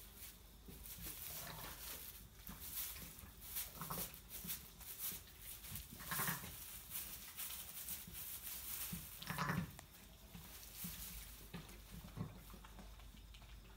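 Sheep bleating: three short calls a few seconds apart, with soft rustling between them.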